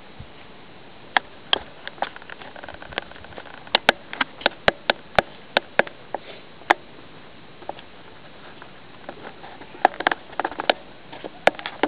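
Irregular sharp clicks and taps from handling of the camcorder, over a steady hiss. The clicks are bunched from about a second in, thin out, and then come thick again near the end.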